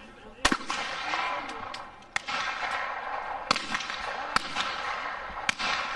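Shotgun shots on a trap range: a loud shot about half a second in, then four more sharp reports spread through the rest.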